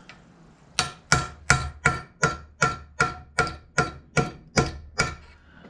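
Hammer striking a steel punch to drive a seized bush out of a 1955 Fordson Major pedal clamped in a vice: about a dozen evenly spaced ringing metal blows, roughly two and a half a second. The bush does not shift.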